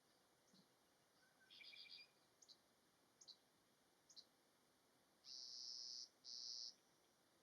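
Faint, high bird calls: a quick stuttering run of chirps, a few single short chirps, then two longer buzzes near the end, the loudest sounds here.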